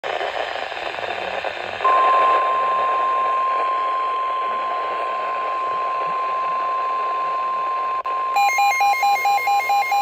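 Weather radio receiver sounding the NOAA 1050 Hz warning alarm tone for a tornado warning: after about two seconds of hiss, one steady high tone comes on and holds. Near the end a fast run of electronic beeps, about four or five a second, sounds over the tone.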